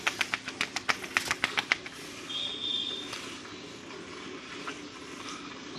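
Cow being milked by hand, jets of milk squirting into a steel pail in quick hissing spurts, about five a second for the first two seconds, then softer and less distinct.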